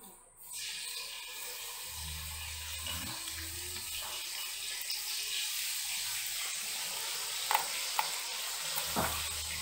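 Steady whooshing hiss of a desktop PC's fans running once the machine is powered on, with a few faint clicks near the end as the front-panel connector wires are handled.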